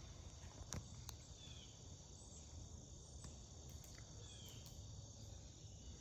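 Faint, steady chirring of crickets or other insects, with a short falling whistle-like call twice and two sharp clicks near the start.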